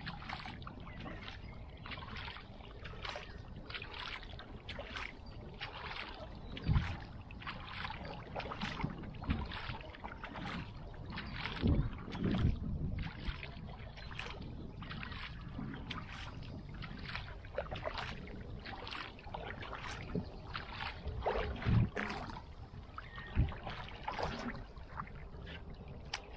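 Kayak paddle blades dipping and pulling through calm lake water in a steady stroke rhythm, short splashes one to two a second, with a few low thumps now and then.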